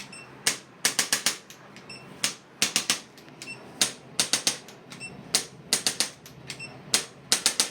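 Sharp clicks in quick, irregular runs, about four a second, some followed by a faint high metallic ring.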